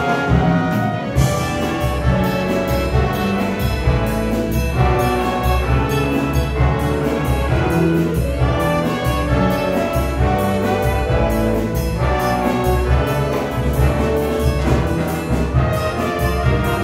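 A school jazz big band playing live: saxophones, trombones and trumpets together over a steady drum-kit beat and electric bass.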